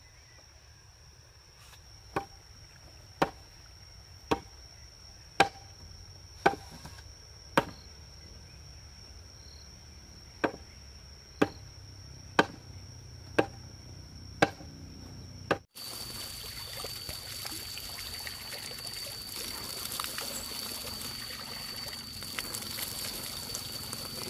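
Chopping blows on wood, struck steadily about once a second in two runs of six with a short pause between, over a steady high insect drone. After a sudden cut about two-thirds of the way in, a steady hiss of pouring or trickling water follows.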